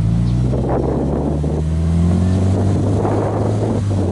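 Subaru Impreza WRX STi's turbocharged boxer four heard at the exhaust tailpipe while parked: the engine is revved gently, the pitch climbing over about two seconds and then easing back down.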